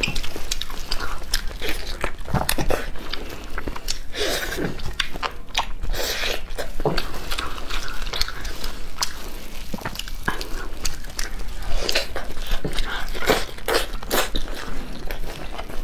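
Close-miked eating of a whole chili-sauced chicken: meat and skin pulled apart by gloved hands, with irregular crackly bites and chewing.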